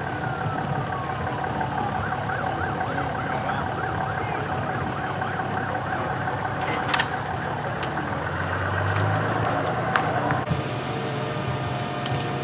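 Emergency vehicle siren sounding. Its pitch falls at first, then switches to a fast up-and-down yelp over a steady tone, and it cuts off about two seconds before the end. A couple of sharp knocks come partway through.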